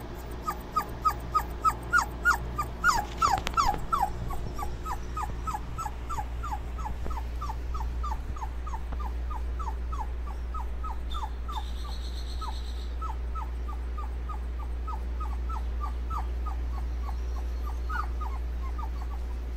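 A puppy whimpering in a long run of short, falling, high-pitched cries, about three a second, loudest in the first few seconds. Underneath runs the steady low hum of an electric fan.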